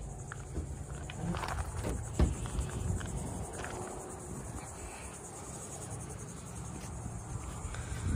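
Steady high-pitched buzz of insects, with a low rumble of wind on the microphone and a few knocks and rustles, loudest a thump about two seconds in.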